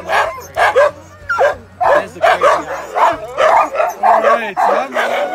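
Several harnessed sled dogs barking and yipping rapidly over one another, with high whines between barks. This is the excited clamour of sled dogs eager to run.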